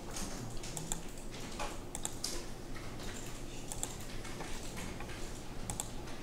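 Irregular clicks of a computer mouse and keyboard, over a low steady hum.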